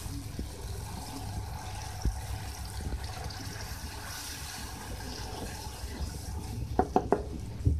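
Water sizzling and bubbling in hot tomato masala in a metal karahi as it is stirred with a wooden spoon. A few short knocks come near the end.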